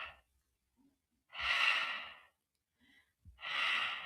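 A voice pronouncing the sound of the letter H: a voiceless, breathy 'h' exhale, repeated about every two seconds.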